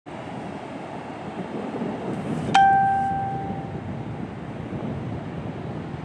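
Steady rush of wind and surf on an open beach. About two and a half seconds in, a single bright bell-like ding rings out and fades over about a second.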